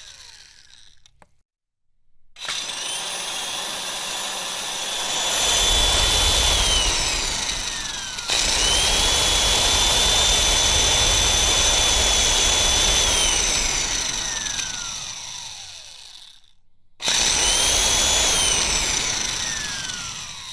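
Electric cake mixer motor beating cake batter, started and stopped several times. Each time its whine rises as it speeds up, holds steady, then slides down as it winds down. It stops briefly near the start and again about three quarters of the way through.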